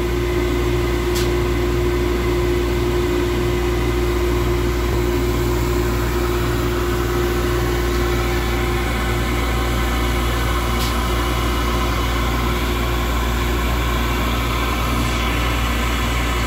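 Steady industrial drone of a running cement plant's machinery: a continuous low hum with a steady mid-pitched tone over it.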